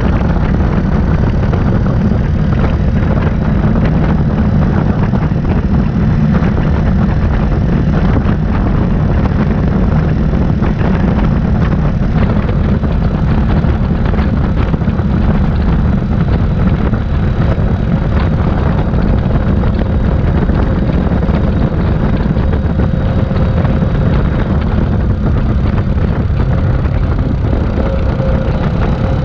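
A 2018 Yamaha Grizzly 700 ATV's single-cylinder engine runs steadily while it rides a dirt trail, under a heavy, even rumble of wind and trail noise on the action camera's microphone.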